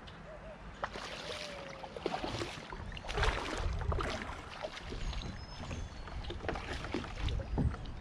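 Kayak on the water: irregular splashing and sloshing around the hull, with scattered knocks and rustles.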